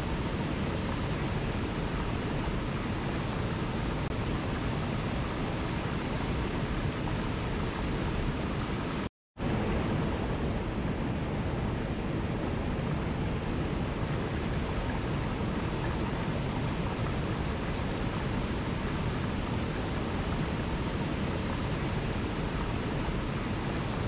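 Small waterfall cascading over rocks into a pool: a steady, even rush of water. The sound cuts out for a split second about nine seconds in, then carries on as before.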